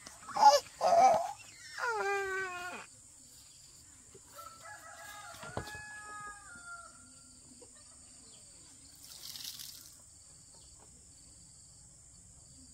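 A rooster crowing loudly, followed a couple of seconds later by a fainter, longer crow.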